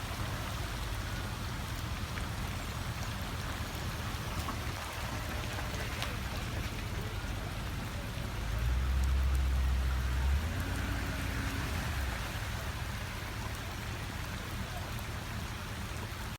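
Steady rain falling, a continuous even hiss, over a low rumble that grows louder for about two seconds midway.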